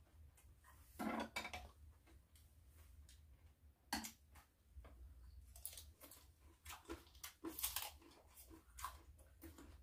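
Quiet eating sounds: scattered light clicks of chopsticks against a plate and soft chewing of raw vegetables, over a low steady hum.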